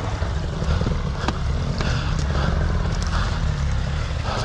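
Dirt bike engine running steadily at low revs, with a few sharp clicks over it.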